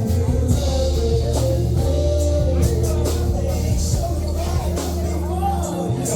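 Music with singing and a steady bass line.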